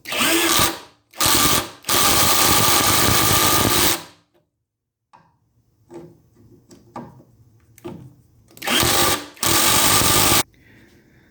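Power drill driving screws into wood in five short runs of the motor: three in the first four seconds, the longest about two seconds, and two more near the end. Light clicks and knocks between them as the drill is moved to the next screw.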